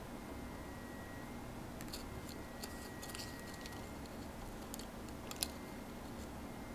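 A Maine Coon cat chewing and biting a plush toy and its tag: an irregular run of small sharp clicks and crunches, the loudest a little over five seconds in.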